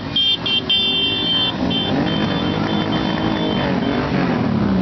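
Motorcycles riding slowly past in a procession, engines running, while a horn beeps repeatedly. There are a few short toots, a longer one about a second in, then shorter ones that fade out after about four seconds.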